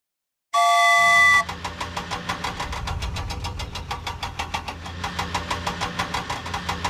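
A horn-like honk lasting about a second, then a vehicle engine running with an even, rapid rhythm of several beats a second.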